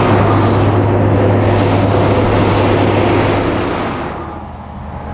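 Road train passing close by: a loud, steady rumble of its many trailer wheels on the road, fading away about four seconds in.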